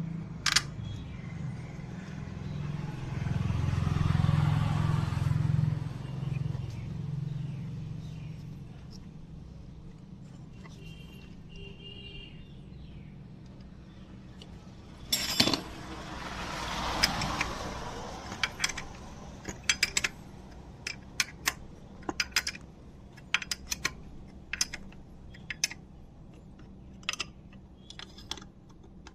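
A motor vehicle passes by twice, its rumble swelling and fading each time. Then comes a run of short, sharp metallic clicks and taps from hand tools on the motorcycle.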